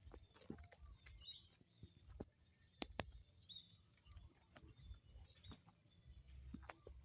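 Near silence, broken by faint scattered clicks and a few faint, short high chirps.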